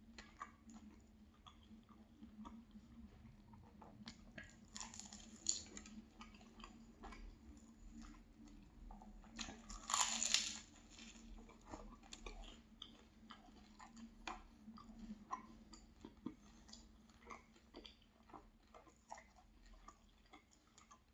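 Close-miked chewing of a filled pastry, wet mouth sounds broken by crunchy bites, the loudest about ten seconds in.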